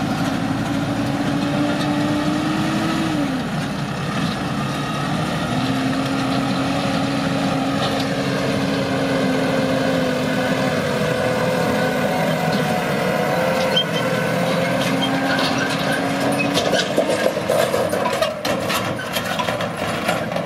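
Heavy farm machine's engine running steadily, its pitch dipping about three seconds in and coming back a couple of seconds later, with irregular knocks and rattles near the end.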